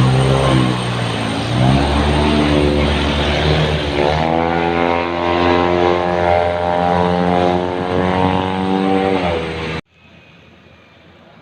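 A bus's basuri horn, a melodic air horn, sounding long wavering notes over the rumble of the bus's engine. The sound cuts off abruptly near the end.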